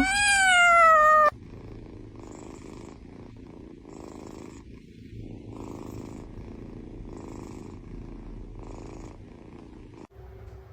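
A domestic cat gives one loud meow falling in pitch, then purrs steadily and quietly, the purr swelling and fading with each breath about every second and a half.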